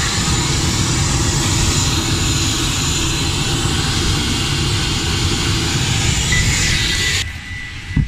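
Loud, steady jet turbine noise on an aircraft ramp: an even rushing roar with a thin high whine over it. It cuts off suddenly near the end.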